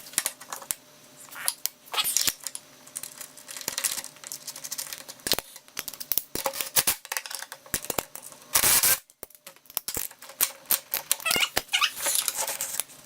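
Scattered clicks, taps and light metallic rattles of seat-belt hardware and hand tools being handled as a retractable seat belt is fitted to a golf cart seat, with a brief rushing noise about two-thirds of the way through.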